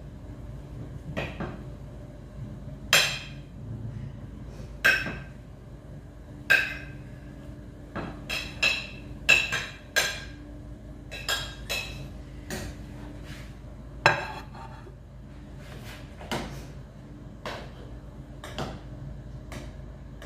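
A spoon knocking and clinking against a steel cooking pot and a plate as fried chicken pieces are scraped into the sauce and stirred: about twenty sharp, ringing knocks at uneven intervals. A steady low hum runs underneath.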